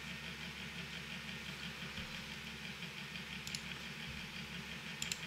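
Steady low room hum with a faint mouse click about three and a half seconds in and another near the end.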